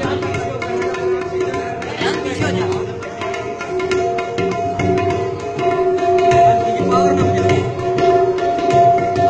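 A pair of tabla drums played by hand in a fast, continuous run of strokes, the drumheads ringing at their tuned pitches between the strikes.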